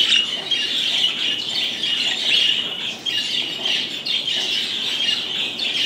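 Many budgerigars chattering and chirping together, a steady dense twittering of overlapping high calls.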